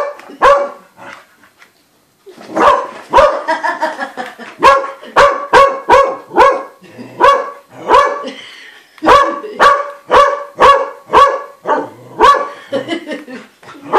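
A spaniel barking repeatedly at a light-up snowman ornament: a bark or two, a short pause, then steady runs of barks about two a second with brief breaks.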